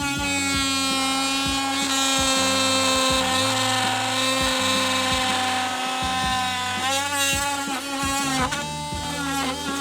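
Oscillating multi-tool with a bimetal blade cutting, a steady high buzz whose pitch sags and wavers a few times near the end as the blade loads in the cut. Background music with a steady beat and bass line underneath.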